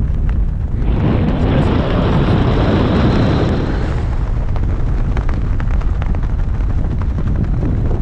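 Wind buffeting the microphone of a pole-held camera during tandem parachute canopy flight: a steady low rumble that swells into a louder rush of air about a second in, then eases back after about four seconds.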